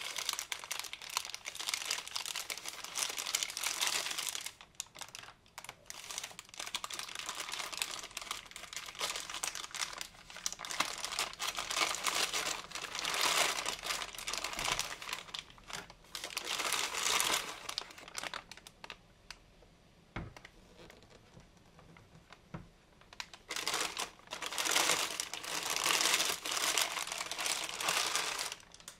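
Thin clear plastic wrap and bag crinkling as they are pulled off the appliance and bunched up by hand. The crinkling comes in several bursts. About two-thirds of the way through there is a quieter stretch with a light knock, then a loud burst of crinkling near the end.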